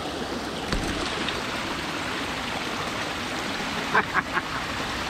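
Brook water rushing and spilling steadily through a beaver dam, with a few short taps about four seconds in.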